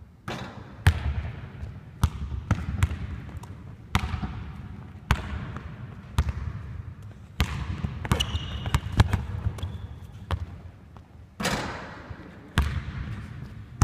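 Basketball bouncing on a hardwood court in irregular dribbles, each bounce echoing in the large empty arena, with a couple of brief high squeaks and a louder, noisier hit about eleven seconds in.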